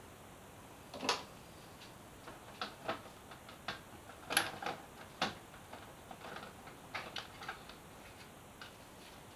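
Irregular clicks and light knocks of hand tools, fasteners and plastic fairing panels being handled as bodywork comes off a motorcycle, the sharpest knocks about a second in and a little past four seconds.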